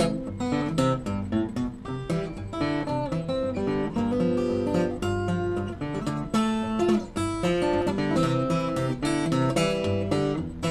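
Acoustic guitar played solo: a steady run of plucked notes and chords over a moving bass line.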